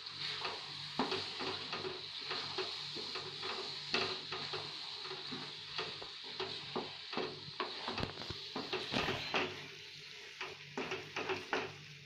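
Wooden spatula stirring and scraping a mash of roasted aubergine, peas and tomato in a non-stick frying pan, with irregular soft knocks of the spatula against the pan over a steady sizzle of the frying mash.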